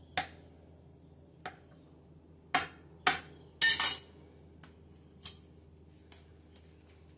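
A metal spatula knocking against the work board as it chops through bread dough: a handful of sharp clicks and knocks, with a longer clatter about three and a half seconds in as the spatula is laid down on the board.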